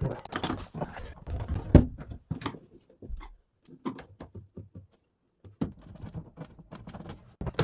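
Irregular knocks and clatter of hand tools and hard objects being handled, with a pause of about a second about two-thirds of the way through.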